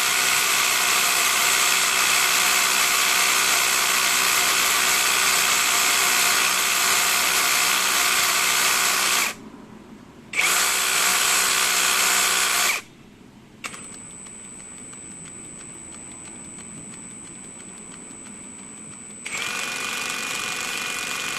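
DaYi cordless lithium-battery hammer drill's motor running on and off at changing speeds: a long run at full speed, a brief stop, a short second burst, then a much quieter stretch with a high thin whine, then running louder again near the end. The uneven running fits the drill's fast-and-slow fault, which the repairer suspects is in its trigger switch.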